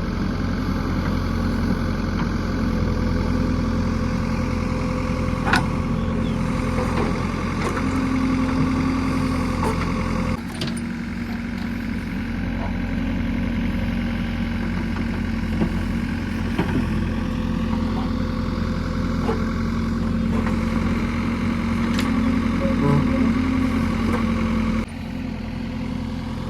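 JCB 3DX backhoe loader's diesel engine running steadily at work, with a few sharp metallic knocks. The sound shifts abruptly about ten seconds in and again near the end.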